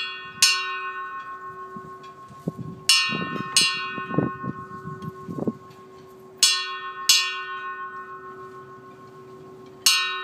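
Brass bell struck by hand with a short metal striker, rung in pairs of strokes about half a second apart, a pair every three to three and a half seconds, each stroke ringing on between pairs.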